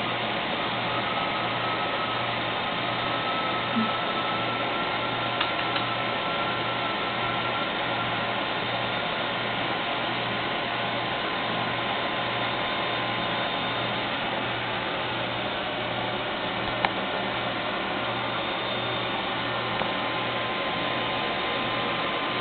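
Steady hiss of recording noise with a low, pulsing hum underneath. There are a few brief faint clicks and taps about 4, 5 and 17 seconds in.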